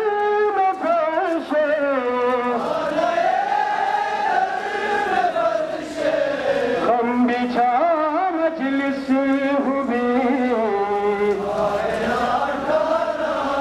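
A man's voice chanting a slow, melodic mourning lament with long held, wavering notes, amplified over loudspeaker horns.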